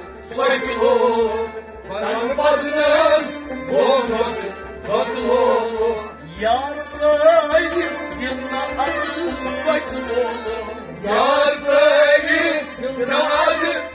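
Men singing a Kashmiri Sufi devotional song in long, ornamented phrases about every two seconds, accompanied by harmonium and rabab.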